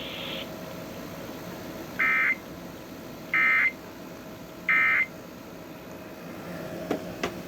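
Emergency Alert System SAME end-of-message data bursts: three short, identical electronic chirps about a second and a half apart, marking the end of a severe thunderstorm warning broadcast. Under them runs a low steady hum, with a couple of faint clicks near the end.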